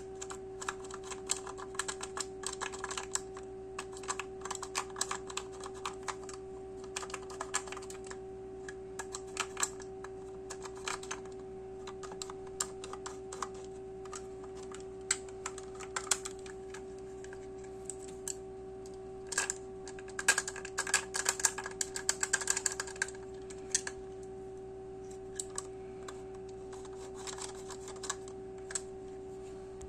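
Many small, sharp clicks and taps from a Lyubitel twin-lens reflex camera being handled and worked by hand, with a dense flurry about two-thirds of the way through, over a steady background hum.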